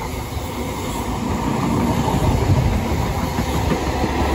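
High Speed Train led by Class 43 power car 43480 running through the station, a heavy rumble with wheels clattering over the rail joints, growing louder.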